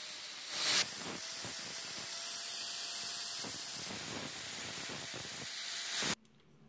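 Angle grinder with an abrasive disc grinding rust off a small steel trowel blade: a steady grinding hiss over a faint motor whine, louder briefly about half a second in. It cuts off suddenly about six seconds in.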